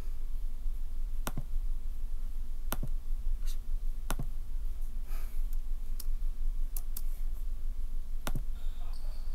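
Single computer mouse clicks, one every second or two, over a steady low hum.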